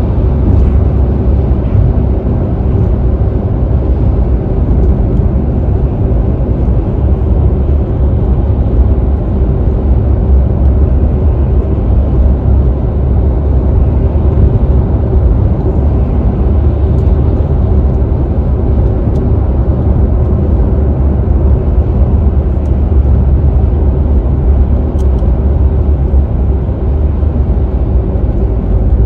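Steady low rumble of a car at freeway speed, its tyre and road noise heard from inside the cabin.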